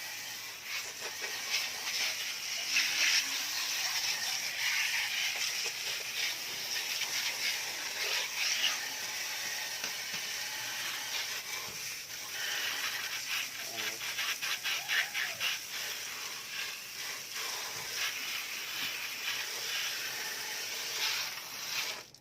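Soapy scrubbing and washing of a window-type air conditioner's parts: a continuous rough, scratchy hiss made of many quick irregular strokes, which stops suddenly near the end.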